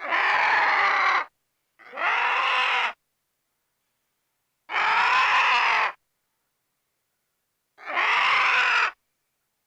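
An animal call, four times, each about a second long with dead silence between.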